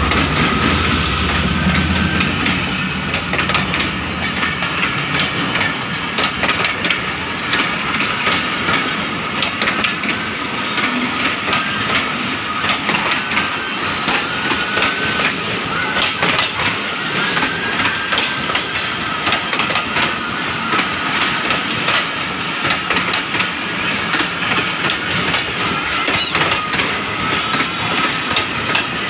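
Passenger coaches of a train rolling past close by: wheels clicking over rail joints over a steady rumble, with a thin wavering squeal throughout. The low rumble of the ZCU-30 diesel locomotive fades in the first few seconds as it draws away.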